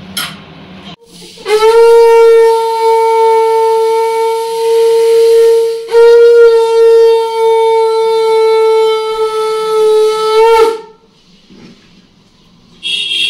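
Conch shell (shankha) blown in two long, steady blasts on one note, the second following straight on from the first; it stops a little under three seconds before the end.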